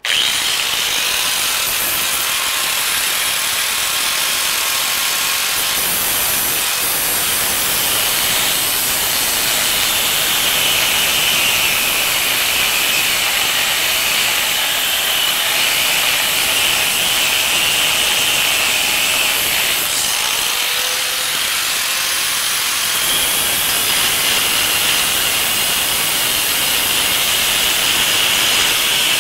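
Grinder with a cutoff wheel cutting a glob of weld off a steel VW front spindle: the motor starts at full speed and the wheel bites into the metal with a loud, steady, high grinding that runs on without a break.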